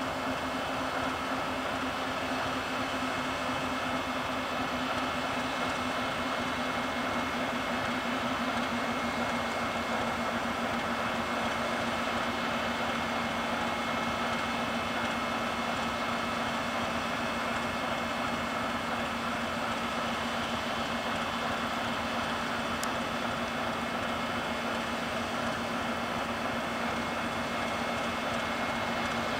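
Freight train wagons rolling past at a steady pace: a continuous noise of wheels on rails with several steady held tones over it.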